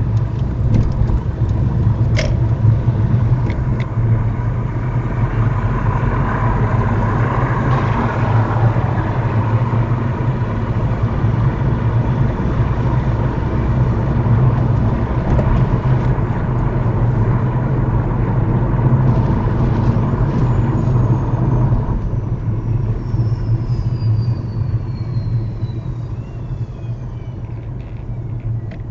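Car engine and tyre road noise heard from inside the cabin as the car picks up speed and then slows, with a steady low drone. It gets quieter over the last few seconds as the car slows.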